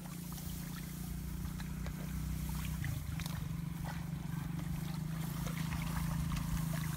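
A steady low engine drone, with small splashes and sloshing of shallow muddy water as hands grope through it.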